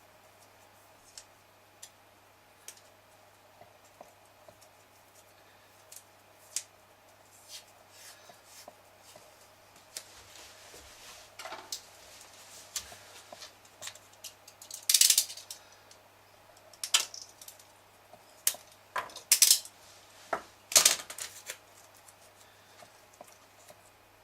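Duct tape being pulled, torn and pressed over a dock's connector: scattered small clicks of handling, then several short loud rasps of tape in the second half.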